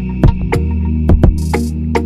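Electronic background music with deep, steady bass notes and a drum beat.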